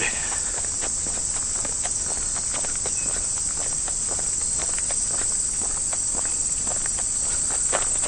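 Steady, high-pitched insect chorus filling the meadow, with footsteps on a dirt and gravel trail.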